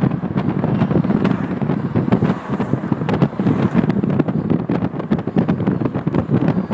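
Wind buffeting the microphone of a camera filming from a moving vehicle, with uneven crackles, over steady road and traffic noise.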